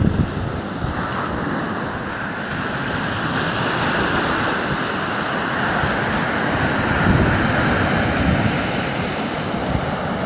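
Small waves breaking and washing up a sandy beach: a steady hiss of surf, with wind buffeting the microphone.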